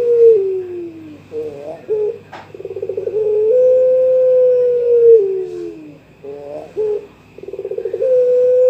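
A young puter pelung dove cooing a challenge call to a rival. Twice, a rapid stuttering start runs into a long drawn-out coo held on one pitch that sags downward at the end, with short broken notes between the calls. There is a sharp click about two and a half seconds in, and a faint steady high whine under it all.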